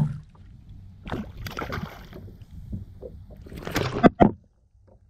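Sea water sloshing against a plastic fishing kayak's hull, with a steady low rumble and two sharp knocks close together about four seconds in.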